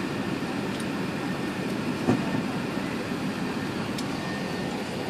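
Steady cabin rumble of an Airbus A380 taxiing, the engines and rolling wheels heard from inside the passenger cabin, with a single thump about two seconds in.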